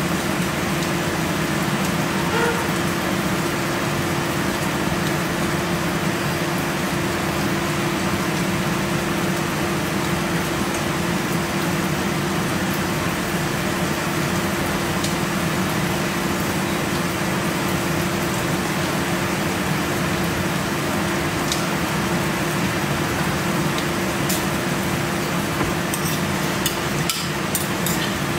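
Kitchen range hood extractor fan running with a steady rushing hum. Near the end, a few light clinks of a pot lid and utensil.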